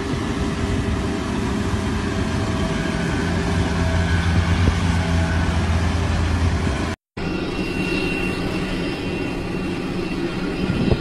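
Steady low rumble with a droning hum, like engine noise. The sound drops out completely for a moment about seven seconds in.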